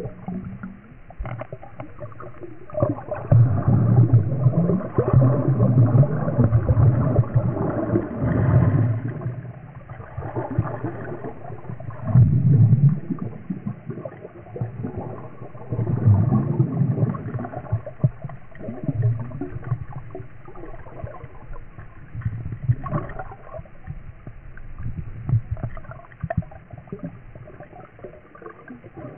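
Muffled gurgling and rushing of water heard from underwater, with a low-pitched sound that swells and fades in irregular surges, stronger in the first half.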